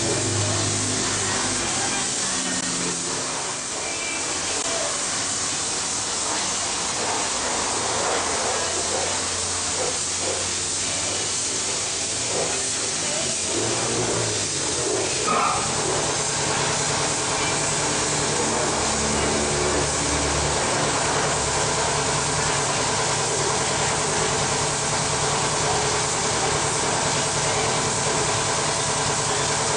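Compressed-air paint spray gun hissing steadily as paint is sprayed onto a steel chassis frame, with a steady low hum joining underneath about halfway through.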